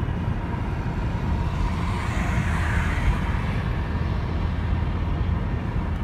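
Steady road noise inside a moving car's cabin: engine and tyres on a wet highway, with a brief swell of hiss about two seconds in.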